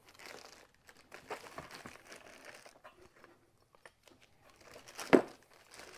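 Plastic parts bags crinkling and rustling as hands rummage through a box of parts, with small clicks of handled pieces. One sharp knock about five seconds in.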